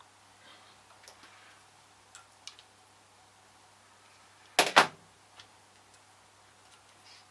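Faint clicks and ticks of small metal lock parts being handled, with two loud sharp knocks close together a little past halfway.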